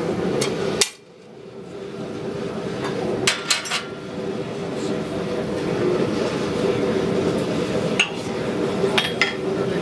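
A few sharp metal clinks and knocks as steel tools and stock are handled at the forge, over the steady hum of a propane gas forge burner running. The strikes are scattered and irregular, with a small cluster a few seconds in.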